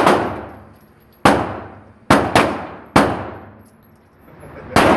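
Six pistol shots fired in quick succession, unevenly spaced with a quick pair in the middle, each followed by a long ringing tail.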